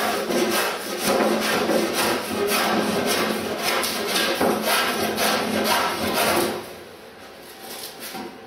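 Small block plane shaving the edge of a wooden paddle blank in a quick, even run of strokes. The strokes stop about two-thirds of the way through.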